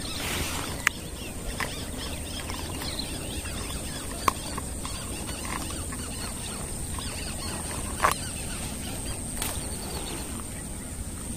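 Open-air swamp ambience with faint bird chirps, broken by a few single sharp clicks, the loudest about a second in and near eight seconds.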